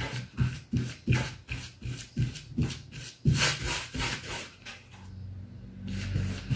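A wide paintbrush scrubbing a white acrylic-and-glue priming mix onto cotton canvas in quick back-and-forth strokes, about three a second. The strokes thin out near the end, leaving a low steady hum.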